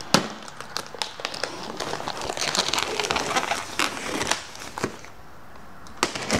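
Clear plastic wrap around a cardboard box being cut open and handled, crinkling and crackling, with one sharp snap just after the start. The crinkling is densest in the middle and eases off before a few more small clicks near the end.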